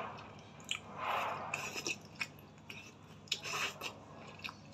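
A person slurping and chewing noodles close to the microphone: two drawn-in slurps, about a second in and past the middle, with wet mouth clicks in between.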